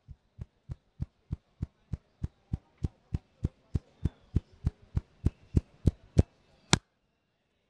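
A barber's fingertips tapping the scalp during an Indian head massage: an even run of sharp taps, about three a second, growing louder, stopping about a second before the end.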